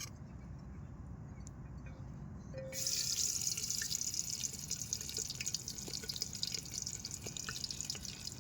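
Onion dropped into hot cooking oil in a pan, bursting into a crackling sizzle nearly three seconds in and then sizzling steadily.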